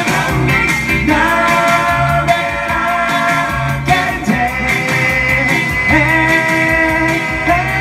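Live amplified performance: a man singing long, held notes into a microphone while playing electric guitar, over a steady, repeating bass line.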